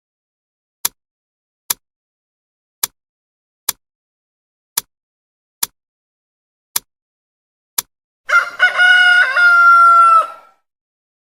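Clock ticking with sharp clicks about once a second, then a single rooster crow about eight seconds in, lasting about two seconds: the alarm going off.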